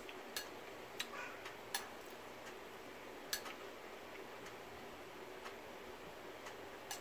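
Quiet eating sounds as soup is spooned from a bowl: a handful of soft, irregular clicks, a few in the first two seconds, one about three seconds in and one near the end.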